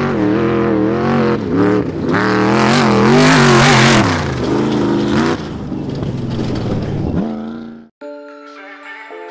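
Off-road race vehicle engine revving hard, its pitch climbing and dropping again and again, with a loud rush of noise about two to four seconds in. The engine sound fades and cuts out near the end, leaving soft music with chiming tones.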